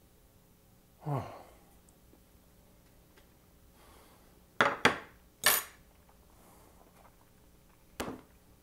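A short falling hum from the man eating about a second in, then three sharp clinks of metal utensils against ceramic dishes in quick succession around the middle, and one more clink near the end.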